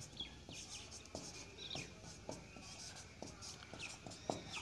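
Felt-tip marker writing on a whiteboard: faint, short strokes and taps as each letter is drawn, with small birds chirping in the background.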